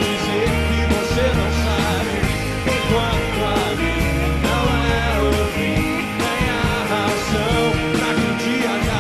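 Rock music from a band, with guitars, bass and drums under a sung vocal line, at a steady loud level.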